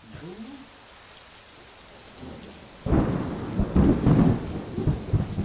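Steady rain falling, then about three seconds in a loud clap of thunder breaks into a long, surging rumble over the rain.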